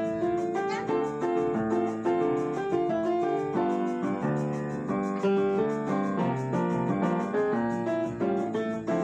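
Upright piano playing a samba in D minor, a quick, unbroken run of notes.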